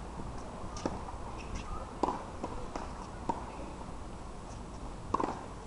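About half a dozen sharp pops of tennis balls being struck by rackets and bouncing on a hard court, irregularly spaced, over a steady low outdoor hum.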